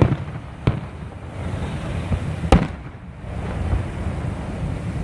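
Fireworks exploding: sharp bangs right at the start, again under a second in, and again about two and a half seconds in, over a steady low rumble.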